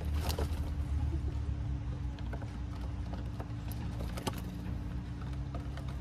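Scattered sharp taps and clicks of chaffinches and robins pecking seed and hopping on wooden boards, over a steady low rumble.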